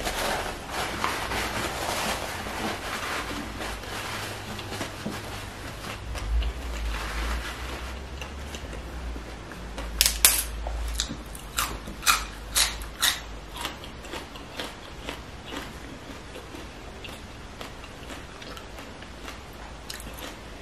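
Close-miked food handling and eating sounds: a paper napkin rustling at first, then a run of crisp snaps and crunches about halfway through as fresh red kale leaves are torn, trailing off into small clicks.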